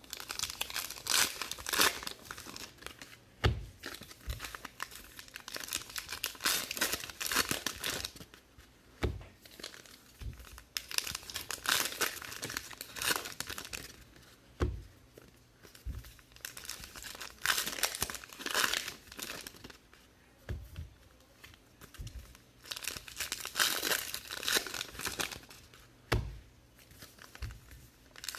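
Plastic wrapping on trading card boxes and packs crinkling and tearing in repeated bouts as it is opened, with a few soft knocks between bouts.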